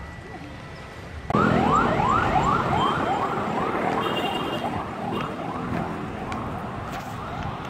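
Electronic siren in a fast yelp, rising again and again about three times a second. It starts suddenly about a second in and slowly fades.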